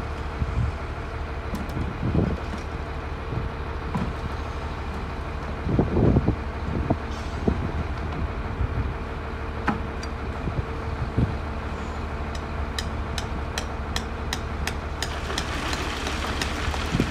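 An engine running steadily throughout, with a few dull knocks. Near the end comes a quick run of sharp metallic taps, several a second.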